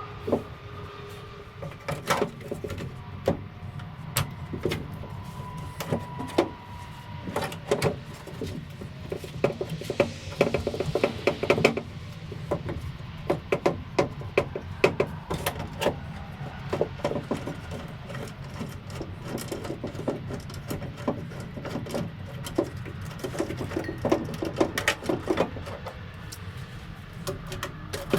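Irregular clicks, clinks and knocks of hand tools and parts being handled during garage work on a car, over a steady low hum.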